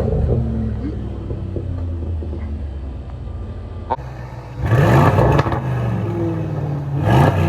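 Aston Martin DBX's twin-turbo 4.0-litre V8 idling steadily, then revved in two short blips, one about four and a half seconds in and another near the end, each dropping back to idle.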